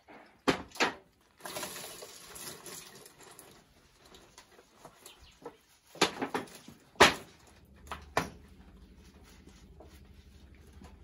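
Water splashing in a plastic bucket as a bath sponge is dipped and wrung out, then the sponge scrubbing skin, with a few sharp splashes.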